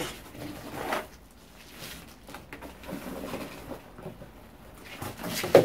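Faint scraping and rustling of soil as a knife blade is pushed and jiggled down into it to settle it into the gaps between packed green onion stalks. A single sharp knock comes just before the end.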